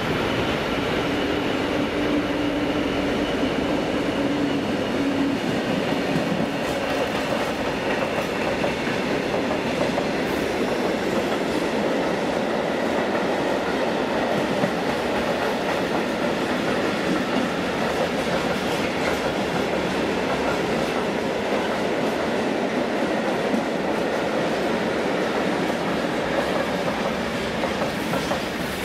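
Class 66 diesel freight locomotive passing slowly with its engine running, followed by a long train of covered steel-coil wagons rolling by, their wheels clicking over the rail joints and points.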